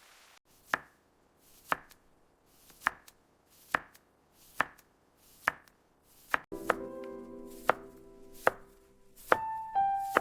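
Kitchen knife chopping vegetables on a cutting board: slow, even single chops about once a second. Soft piano music comes in about six and a half seconds in.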